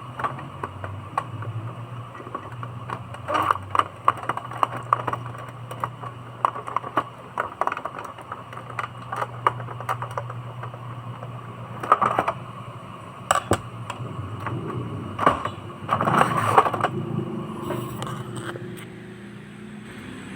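Irregular clicks and knocks of plastic printer parts being handled and fitted together, with a few louder knocks near the middle and toward the end. A steady low hum runs underneath.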